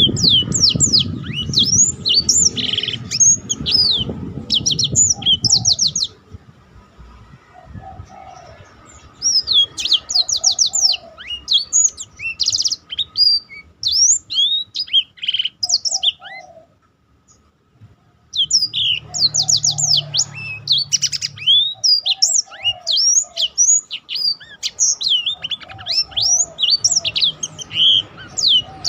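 Black-throated canary singing its rolling song: fast high trills and chirps strung together in long runs, broken by two short pauses. A low rumble sits under the first few seconds.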